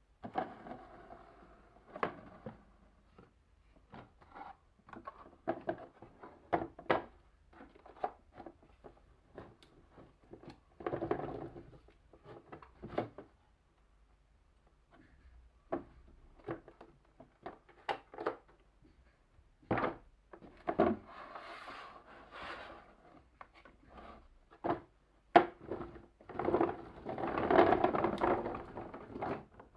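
Wooden balls running through a marble run: irregular wooden knocks and clacks as they drop and strike the track, with a few longer stretches of rolling rumble, the longest near the end.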